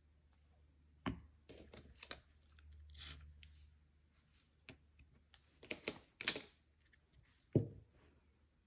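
Nail-stamping tools handled on a metal stamping plate: a scraper scraping across the plate and a silicone stamper set down and lifted. There are a few sharp clicks and short scrapes, then a dull knock about seven and a half seconds in.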